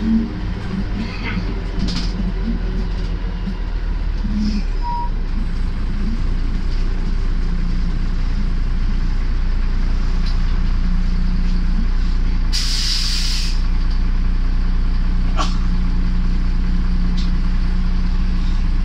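Interior of a MAZ-105 articulated city bus under way: a steady engine and driveline drone that grows louder over the first several seconds. About two-thirds of the way through comes a sharp hiss of compressed air lasting about a second, typical of the bus's air brakes releasing.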